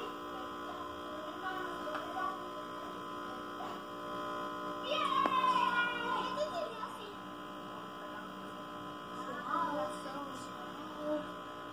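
Steady electrical hum throughout, made of several constant tones. About five seconds in, a child's brief high-pitched voice rises over it and falls away.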